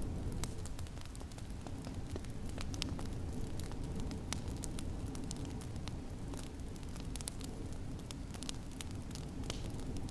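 Wood fire in a fireplace crackling, with many sharp, irregular pops and snaps, over a steady low rumble of storm wind.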